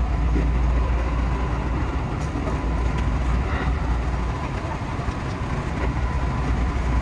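JR 221 series electric train running, heard from the driver's cab: a steady low rumble of wheels and track with a faint high steady tone.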